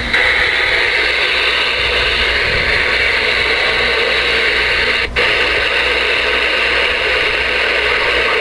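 Steady static hiss of band noise from a Ranger 2970N2 10-metre radio's speaker while it is receiving, with a brief dip about five seconds in.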